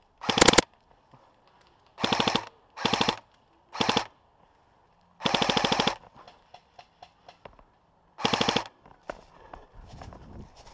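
Airsoft electric rifle, upgraded with an M120 spring and a high-torque motor, firing six short full-auto bursts of rapid clicks. The loudest burst comes right at the start and the longest, nearly a second, comes about five seconds in. Faint scattered ticks and rustling follow the last burst.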